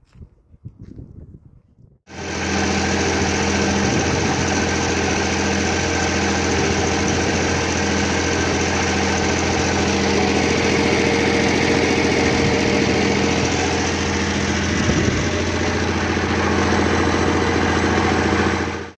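Motor of a clay brick-extruding machine running at a steady speed, a loud even drone that starts abruptly about two seconds in.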